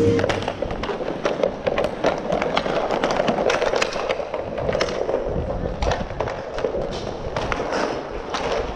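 Inline hockey play: hockey sticks clacking against each other and against the puck in an irregular string of sharp cracks, over the rolling of inline skate wheels on plastic rink tiles.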